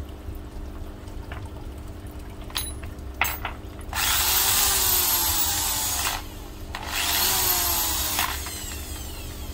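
Handheld electric pistol drill, its chuck newly replaced, run twice in bursts of about two seconds each: a test spin. A few sharp clicks come shortly before the first run.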